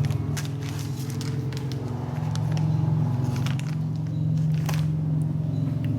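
A steady low machine hum, with scattered light clicks and taps.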